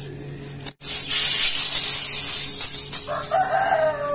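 A rooster crows about three seconds in: one call that holds and then slides down in pitch. Before it there is a loud, steady hiss.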